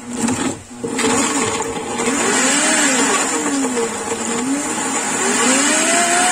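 Countertop blender motor starts with a short burst, then runs steadily as it purees chunks of roasted bell pepper. Its whine rises and falls in pitch and climbs near the end.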